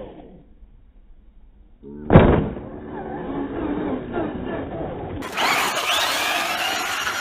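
Traxxas Slash 2WD RC truck landing from a jump with one loud thud about two seconds in, then its brushed 12-turn Titan electric motor and drivetrain whining as it accelerates, rising in pitch and getting louder as the truck comes close.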